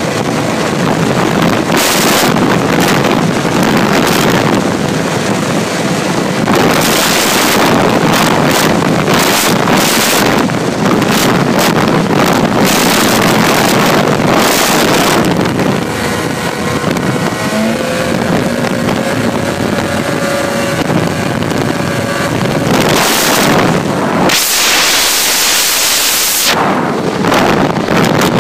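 Snowmobile running at high speed, its engine largely buried under heavy wind buffeting on the microphone that swells and eases in gusts. The engine's steady tone shows through faintly where the wind eases, about two-thirds of the way through.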